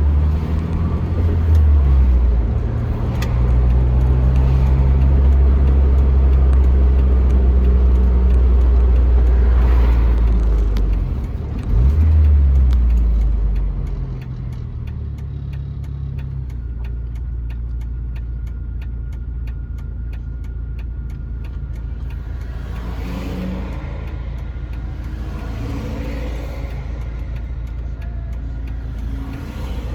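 A 1999 Jeep Wrangler TJ driving, its engine and road noise loud and steady, with a brief dip and surge at about twelve seconds. After about fourteen seconds it drops to a quieter, even level.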